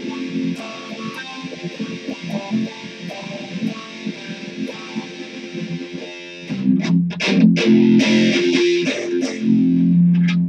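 Electric guitar played through an amplifier: quick picked single notes, then from about six and a half seconds in, louder strummed chords.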